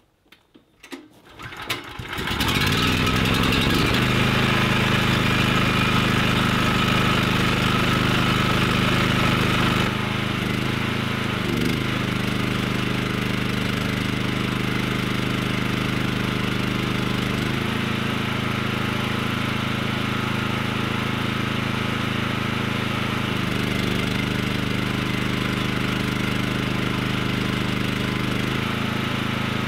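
A small generator engine starts about two seconds in and then runs steadily. Its note shifts several times as it goes.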